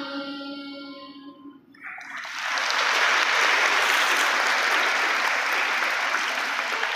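The choir's last sung note fading away, then a large audience of schoolchildren clapping from about two seconds in, steady and loud to the end.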